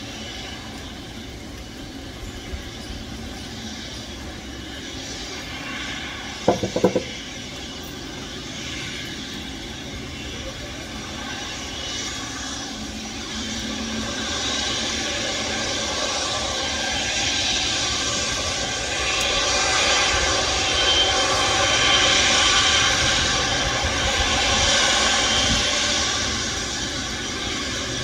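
Passenger airliner's engines growing steadily louder, loudest about two-thirds of the way through, then easing off a little. A brief cluster of sharp knocks about six and a half seconds in.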